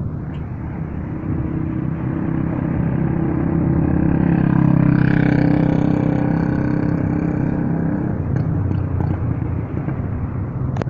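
Rolling thunder from a nearby thunderstorm: a long, loud, deep rumble that swells to its loudest about halfway through and then slowly dies away.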